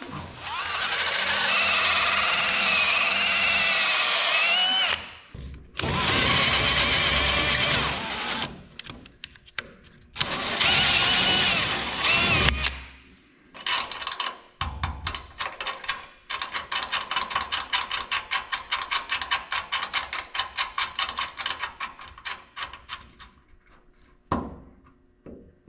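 Cordless drill boring through the excavator's metal canopy in three long runs, its motor whine wavering and rising at the end of each run. This is followed by a fast run of clicks lasting several seconds.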